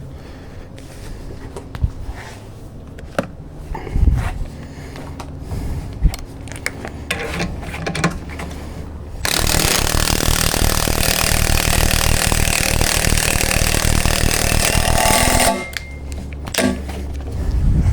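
Scattered metal knocks and clanks, then a power tool rattles loudly and steadily for about six seconds and cuts off suddenly.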